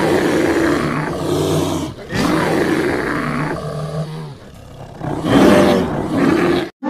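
A big cat roaring: three long, rough roars, the last cut off suddenly.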